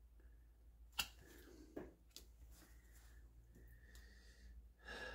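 Faint snaps and taps of a Lenormand card being drawn and laid down on a wooden table: one sharp click about a second in, a few softer ones after, and a soft rustle near the end.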